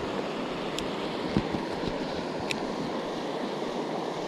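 Steady rush of flowing creek water. A soft knock comes about a third of the way in.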